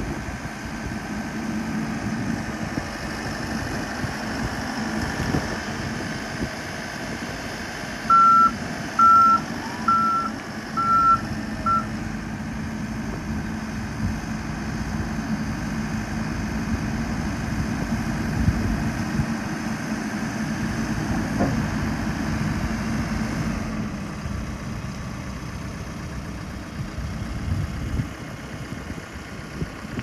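Case 580 Super N backhoe loader's 97 hp turbo diesel engine running steadily while the machine drives. About eight seconds in, its reverse alarm beeps five times, roughly a second apart, as it backs up. Near the end the engine note drops.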